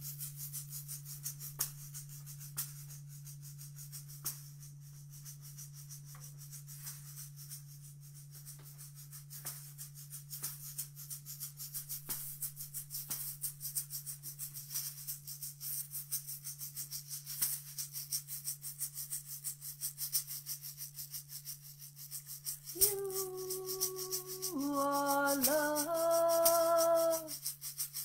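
A hand rattle or shaker shaken in irregular strokes over a steady low drone. Near the end a voice sings a few held notes, stepping between pitches.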